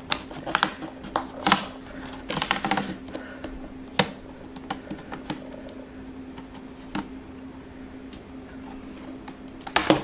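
Clicks and snaps of a laptop's plastic bottom-cover clips letting go as the Samsung Notebook 7 Spin's cover is pried and pressed loose with a plastic opening pick. A quick run of clicks comes in the first three seconds, single clicks about four and seven seconds in, and a louder snap near the end.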